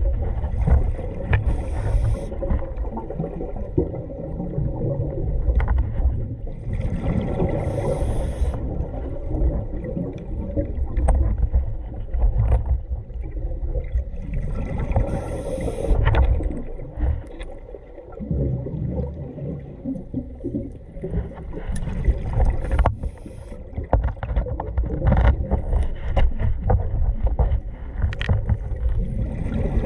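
Underwater sound heard through a waterproof camera housing on a scuba dive: a steady low rumble with handling knocks, and a gurgling hiss of exhaled regulator bubbles about every seven seconds.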